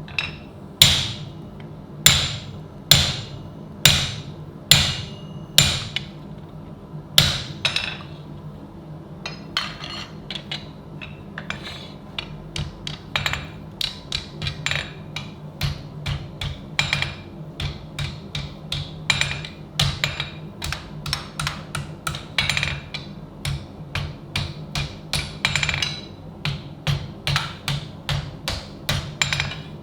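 Hand hammer striking steel in a steady series of ringing blows, slow at first, then about two a second from roughly a third of the way in.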